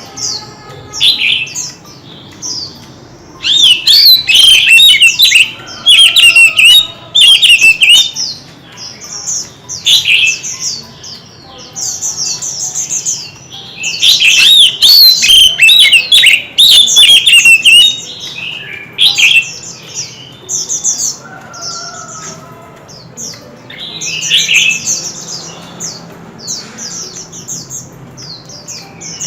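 White-rumped shama singing its full-intensity competitive song: loud, rapid, varied whistled phrases in bursts, with short pauses between them.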